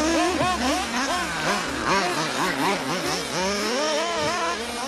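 Several 1/8-scale nitro RC buggies with .21 glow engines racing. Their engines whine high and rev up and down quickly, over and over, through the turns.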